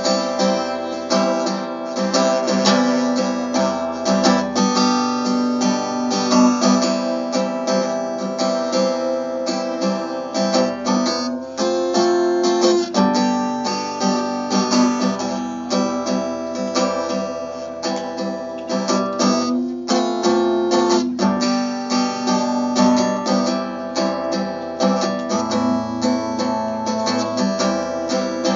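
Solo acoustic guitar strummed steadily through an instrumental break in a country song, with no singing.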